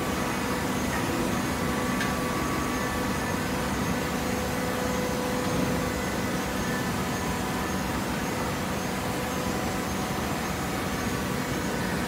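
Horizontal hydraulic baler's motor and hydraulic pump running: a steady machine hum with a few faint held tones.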